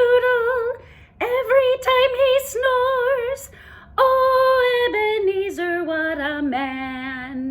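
A woman singing a children's song unaccompanied, holding notes with vibrato. About four seconds in, the melody steps down the scale note by note and ends on a low held note.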